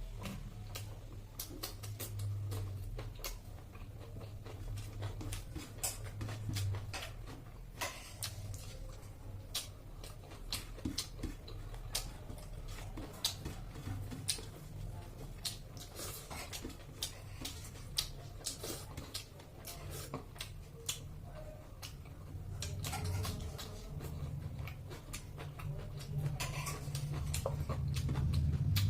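A person eating with the mouth close to the microphone: chewing and lip-smacking, with many quick, irregular wet clicks and smacks.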